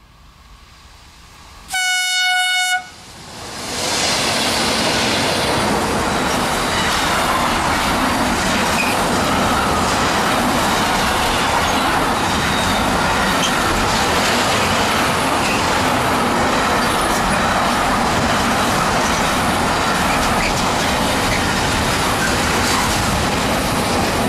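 A train horn sounds one steady note for about a second. Then an intermodal container freight train hauled by two E652 electric locomotives passes close by, with loud, steady wheel-on-rail noise from its wagons for about twenty seconds.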